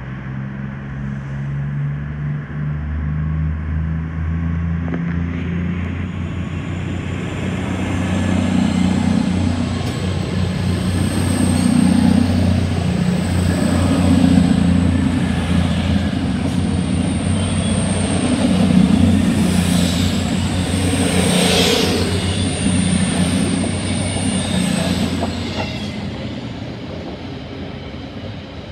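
A passenger train running past along the platform close by: a steady low drone with wheel-on-rail running noise, growing louder to its peak in the middle and fading toward the end.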